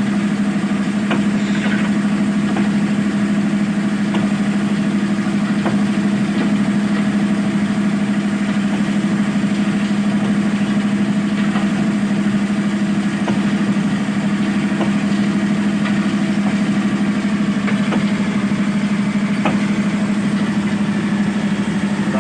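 Diesel engine of a Zoomlion ZE215E excavator running steadily at a constant speed, with a few faint ticks over the even hum.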